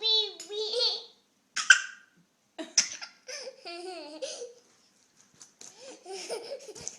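A young child's high-pitched voice laughing and squealing in several short outbursts, with brief pauses between them.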